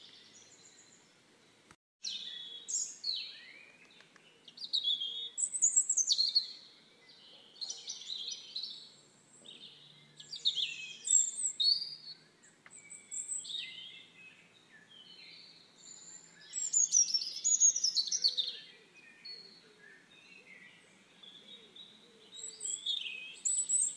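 Small birds chirping and singing, a run of short, quick calls that glide up and down in pitch, one after another, with a brief cut-out about two seconds in.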